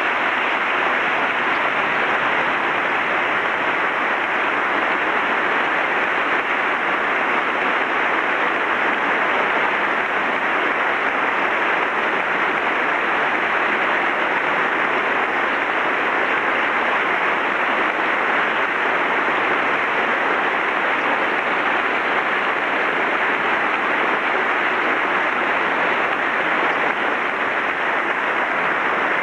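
A large audience applauding: a dense, even clatter of many hands clapping that holds steady at one level.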